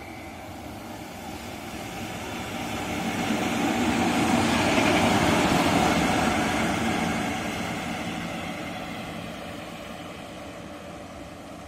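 A single electric freight locomotive running light past at speed, its wheels on the rails and its motors humming. It grows louder to a peak about halfway through, then fades as it goes away.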